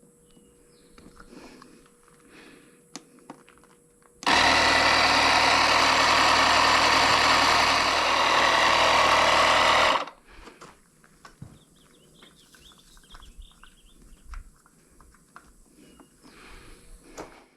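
Air compressor running steadily for about six seconds, then cutting off abruptly: a tire being inflated to about 10 psi after Slime sealant was put in. Faint handling clicks before and after.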